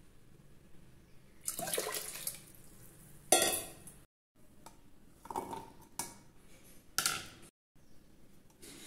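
Tamarind water poured from a steel bowl into a pressure cooker, splashing onto rice, dal and vegetables, followed by a sharp clank of steel vessels knocking together. A few shorter clinks and rustles of steel kitchenware follow.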